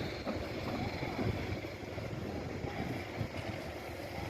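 A steady low rumble mixed with wind buffeting the microphone, with no distinct knocks or bangs.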